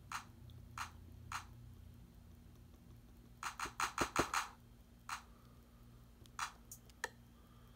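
Fingers tapping the drum pads of an Akai MPK225 MIDI controller: three evenly spaced taps, a quick run of about six in the middle, then a few more scattered taps.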